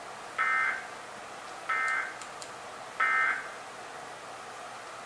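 Emergency Alert System end-of-message signal: three short bursts of the screechy digital data tone, about a second and a third apart, marking the end of the test message. A faint steady hiss lies underneath.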